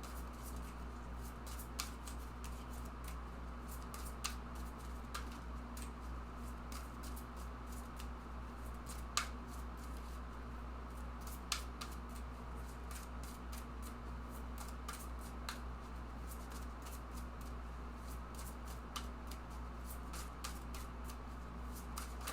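A deck of oracle cards being shuffled and handled: many soft, irregular card clicks over a steady low hum.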